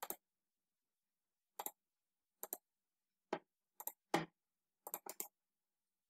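About eight short, sharp clicks at irregular intervals, some in quick pairs, with silence between.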